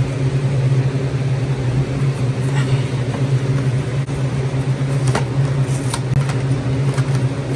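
Walk-in cooler's evaporator fans running with a loud, steady hum. Past the middle come a couple of light clicks from beer bottles and cartons being handled.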